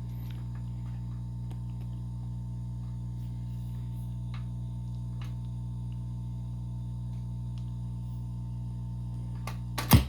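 Steady electrical mains hum from a vintage General Electric record player switched on, with a few faint crackles. A loud click near the end, after which the hum drops away.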